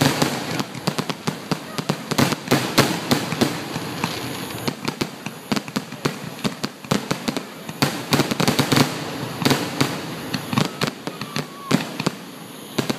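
Aerial fireworks display: shells bursting in a dense, irregular barrage of bangs, several a second, with crackle and hiss between the reports.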